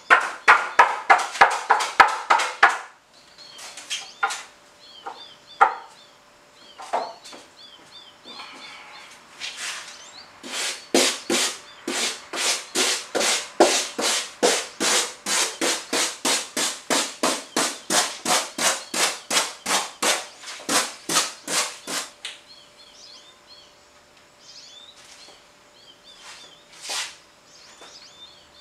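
Hand saw cutting rigid foam insulation board: fast, regular rasping strokes, about three to four a second, in a short run at the start and a longer run from about ten seconds in to about twenty-two seconds. Birds chirp faintly in the pauses.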